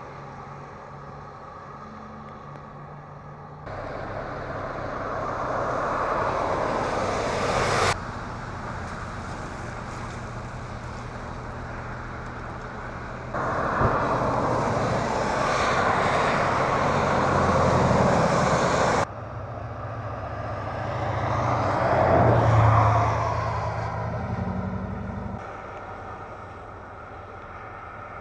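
Outdoor traffic noise on wet, flooded streets: a steady hiss of passing vehicles that jumps abruptly in level several times. One vehicle swells past about three-quarters of the way through, rising and then fading.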